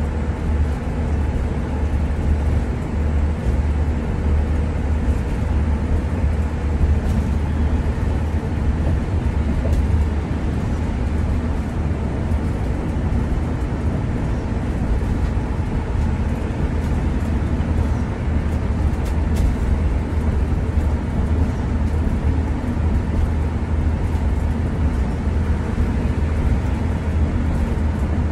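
Steady low rumble of engine and road noise heard inside the cab of a large bus-style vehicle cruising at highway speed on a wet road.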